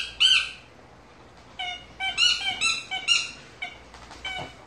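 Dog whining and yelping in a quick series of short, high-pitched squeals during play, a dog giving way submissively to another.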